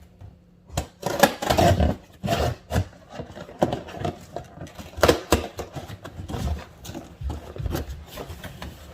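A cardboard shipping package being opened and its contents handled: irregular rustling, scraping and knocking, with sharper knocks a little after one second in and around five seconds in.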